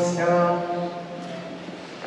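The last held sung chord dies away in the church's reverberation over about the first second, leaving a quieter pause with a faint low hum lingering a little longer.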